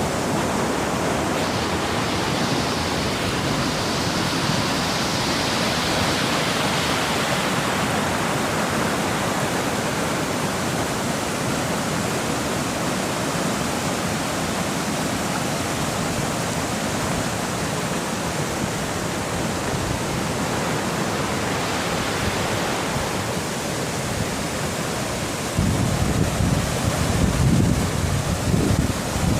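Steady rushing of moving water, an even noise with no distinct events. Near the end, gusts of wind start buffeting the microphone with a low rumbling.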